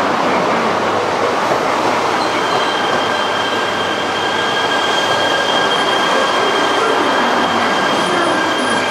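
E3-series Yamagata Shinkansen train rolling slowly along the platform, a steady rumble of wheels on rail. A steady high-pitched whine or wheel squeal sets in about two seconds in and holds.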